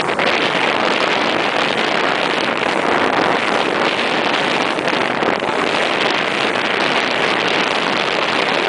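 Small motorboat under way across open water: a steady rush of wind and water noise with the boat's motor mixed in.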